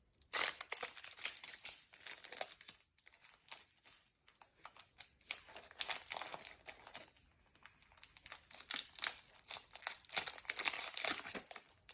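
Foil wrapper of a Pokémon trading card booster pack being crinkled and torn open by hand, in irregular crackling bursts with short pauses.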